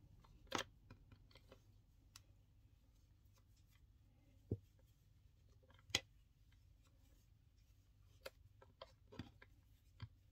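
Faint rustling of cotton cord being knotted by hand, with a handful of short, sharp taps and clicks spread through, the loudest about a second in and about six seconds in.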